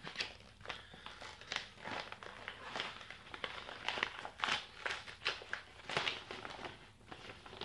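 Paper wrapping crinkling and rustling in irregular crackles as it is unfolded by hand to get at a pair of socks.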